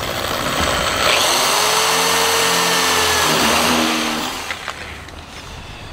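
Electric drill boring a hole through the edge of an A-frame camper panel. It runs at speed for about four seconds, the motor pitch gliding up and back down, then winds down.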